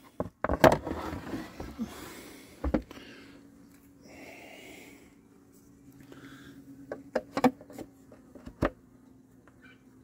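Plastic tray and wooden hive parts being handled: a run of knocks and scrapes over the first three seconds, more sharp clicks and knocks toward the end, and a low steady hum underneath from about three seconds in.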